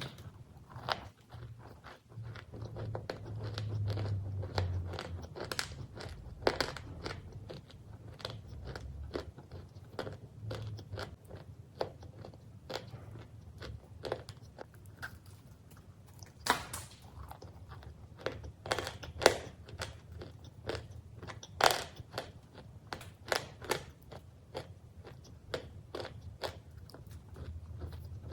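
Close-up biting and chewing of crunchy cookies: a steady run of sharp, irregular crunches, several a second, with a few louder bites about two-thirds of the way through.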